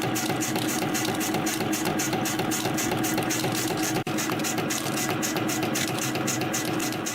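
YHM CF-310 CNC spring coiling machine running, forming conical springs from 0.4 mm wire: a steady mechanical hum with a quick, regular pulse about four times a second. The sound drops out briefly about four seconds in.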